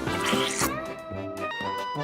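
Upbeat background music with plucked guitar notes over a steady beat, with a rising swoosh in the first half second.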